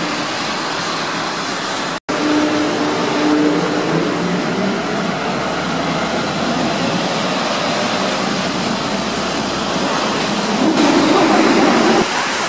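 Tram passing close by: its wheels run on the rails under a steady rushing noise, with a faint motor whine. The sound cuts out for an instant about two seconds in, and there is a louder stretch near the end.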